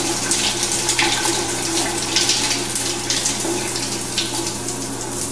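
Water spraying steadily from a shower head fitted with a thermostatic shower-start valve, at full flow while the cold water runs through before the hot water arrives.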